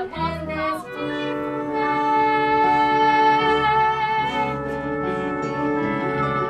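Instrumental music from a live student band playing the score of a stage musical: sustained chords that shift every second or two, with a wavering melody line in the first second.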